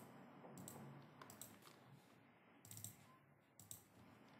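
Faint, scattered computer keyboard taps and mouse clicks, a few isolated ticks over a very quiet background.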